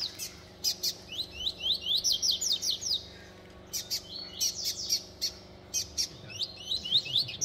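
Young double-collared seedeaters (coleiros) still in brown plumage singing against each other in a song contest. The song comes in three bursts of quick, sharp, downward-slurred notes with short pauses between them.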